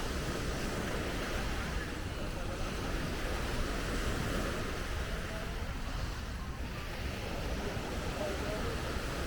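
Ocean surf washing onto the beach in a steady wash of noise, with wind buffeting the microphone.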